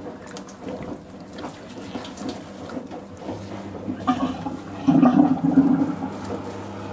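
Water running and gurgling away down a drain as the flow dies down, with a louder gurgling spell about five seconds in.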